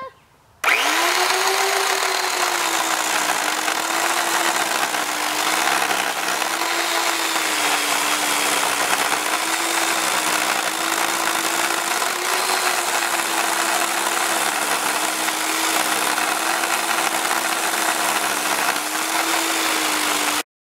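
WORX WG305 14-inch corded electric chainsaw starting about half a second in and cutting down into the top of a birch log. Its motor whine is steady, dipping slightly in pitch here and there under load, and it cuts off suddenly near the end.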